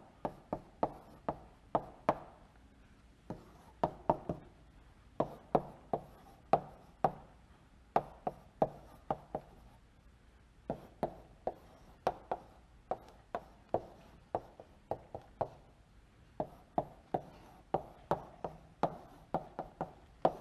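Chalk knocking against a blackboard in quick, irregular taps as circles, letters and arrows are drawn. The taps come in short clusters with brief pauses between them.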